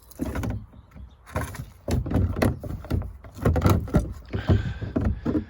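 A badly fitting door being dragged and knocked shut: a run of irregular knocks and scrapes.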